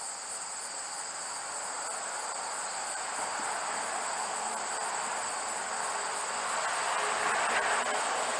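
Crickets trilling steadily in a high, even buzz. A rushing noise swells louder in the second half.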